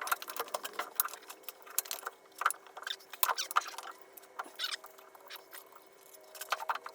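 Irregular light metal clinks and rattles from bolts and tools being handled while the lathe motor is bolted onto its mount, over a faint steady hum.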